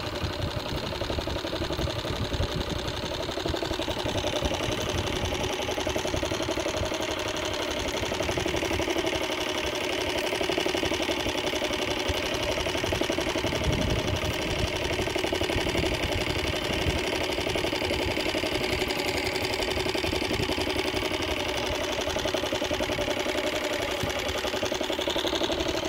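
Small boat motor running steadily at an even speed.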